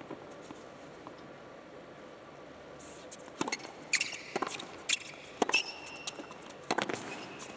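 A hushed arena, then from about three seconds in a tennis rally: the ball struck back and forth by racquets, with short high squeaks of tennis shoes on the hard court.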